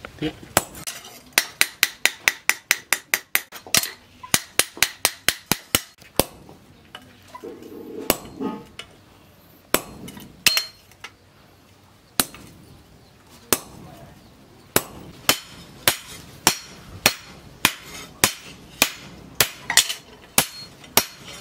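Hammer blows on a hand-held chisel cutting into a hot steel plough-disc cleaver blank on a steel anvil, each strike a sharp ringing metal clink. A fast run of about four blows a second comes first, then scattered blows with a short pause, then steady blows about two a second.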